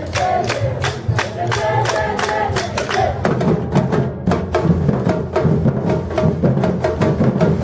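Batucada percussion group playing a fast, steady rhythm of dense drum strokes. The low drums come in heavier about three seconds in.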